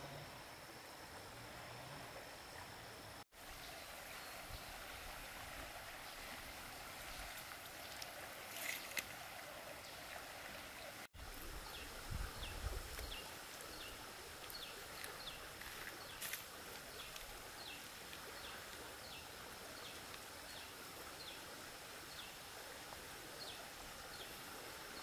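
Faint riverside ambience: a soft steady hiss of water and air under a thin, steady high insect drone. Through the second half, short high chirps repeat about once a second. The sound breaks off for an instant twice at edit cuts.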